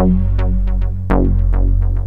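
Instrumental electronic background music: plucked-sounding notes that ring and fade over a sustained low bass.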